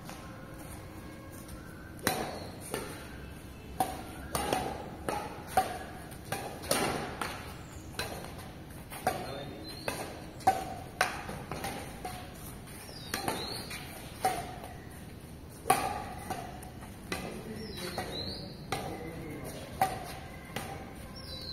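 Badminton rackets striking a shuttlecock in a rally: sharp pinging hits from the strings, about one every half second to second, with uneven spacing.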